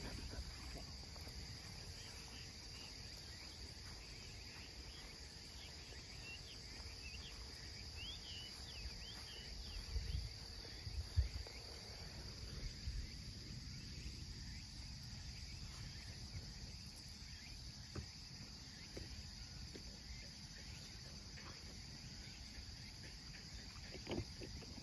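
A steady, high-pitched chorus of crickets and other insects in the grass, with a few low thumps about ten seconds in.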